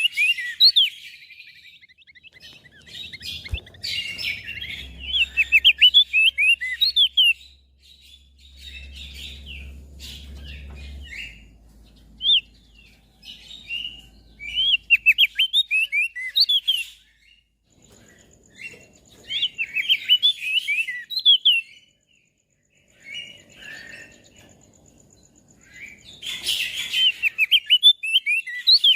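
Opior jambul (crested darkeye) singing: phrases of rapid, high-pitched twittering chirps lasting several seconds each, broken by short pauses.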